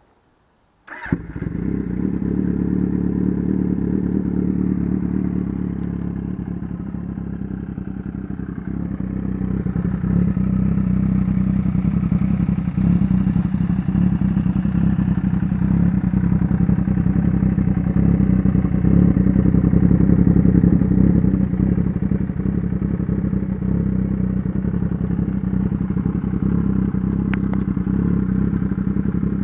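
Kawasaki Z800 inline-four with an aftermarket exhaust, coming in abruptly about a second in and then running steadily, a little louder from about ten seconds on.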